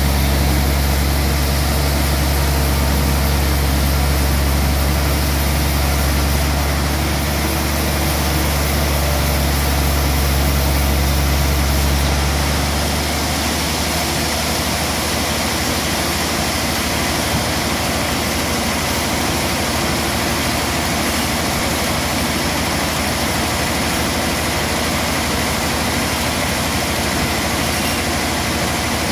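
Large sawmill band saw running steadily, a continuous machine drone. Its deep low hum drops away about twelve seconds in while the rest of the machine noise carries on.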